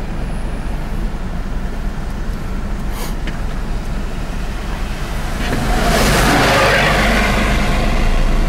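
Road noise heard from inside a moving car: a steady engine and tyre rumble, with a broad hiss that swells louder about five and a half seconds in and holds.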